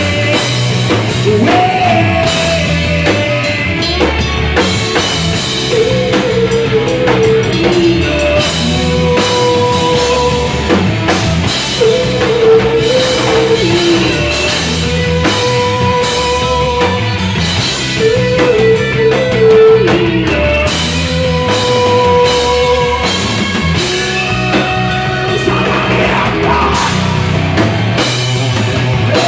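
Live rock band playing loud: a drum kit and electric guitars, with a melody line that holds notes and bends over a steady drum beat.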